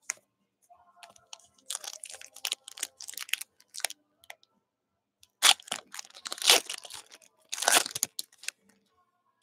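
A Panini Luminance football card pack's plastic wrapper crinkling in the hands, then torn open in three loud rips in the second half.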